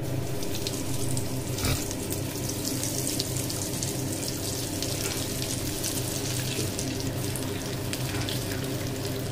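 Breadcrumb-coated paneer nuggets deep-frying in hot oil in a kadai: a steady sizzle and crackle of bubbling oil, with a brief louder crackle about two seconds in. A steady low hum runs underneath.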